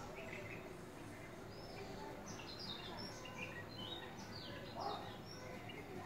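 Birds chirping: a scatter of short, high, mostly falling notes, faint against a quiet background.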